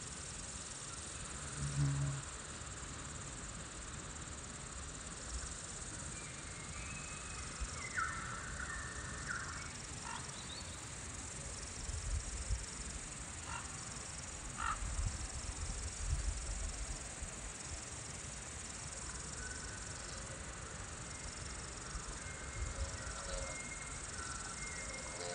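Outdoor ambience: a steady chirring of insects, with a few short higher calls and occasional low rumbles.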